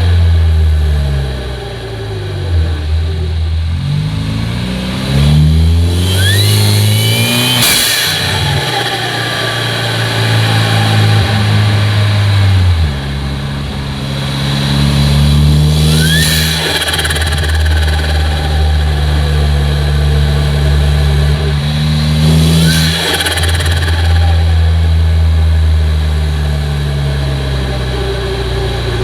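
Peugeot 408 THP's turbocharged 1.6 four-cylinder engine revving up and dropping back repeatedly. Three times, as the revs build, a rising turbo whistle is heard, followed on lift-off by a short burst of turbo flutter as the pitch falls.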